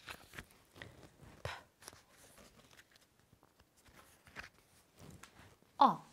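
Stiff flashcards being handled and changed over in the hands: a few soft taps and rustles of card on card. Near the end a woman's voice sounds one short vowel, falling in pitch.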